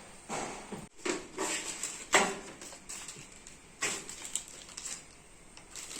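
Irregular clicks and knocks of PC parts being handled and fitted during assembly, the sharpest a little over two seconds in.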